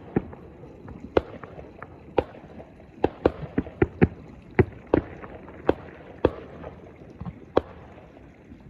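Fireworks going off: a rapid, irregular run of sharp bangs, around fifteen of them, over a continuous crackling haze. The bangs stop about a second before the end.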